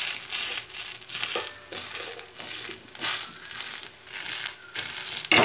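Metal spatula scraping and pressing a wheat roti on an oiled iron griddle, in short irregular strokes over the roti sizzling in the oil, with a louder scrape near the end.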